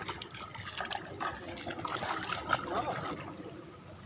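Shallow water trickling, with many small splashes and sloshes throughout.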